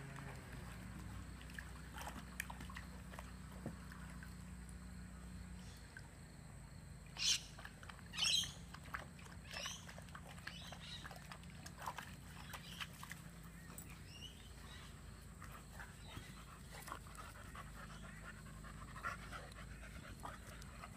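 Beagles and a boxer playing, with two short, high-pitched dog yelps about seven and eight seconds in and fainter scattered sounds of play after them.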